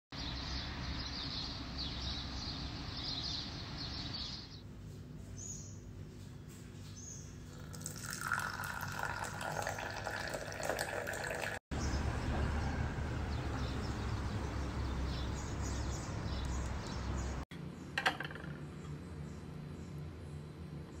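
Tea being poured into a glass teacup, a few seconds of filling trickle, after faint high chirping at the start. Near the end, one sharp knock of a knife on a wooden cutting board.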